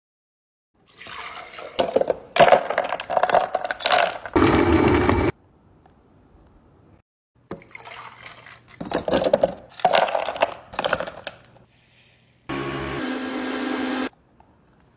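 Countertop blender grinding a thick smoothie mix, in several stop-start runs, with ragged, uneven loudness during the first two runs. Near the end comes a shorter, steadier run with a humming motor tone.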